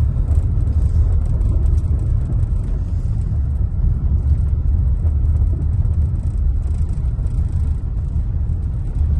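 Steady low rumble of a road vehicle being driven, heard from inside.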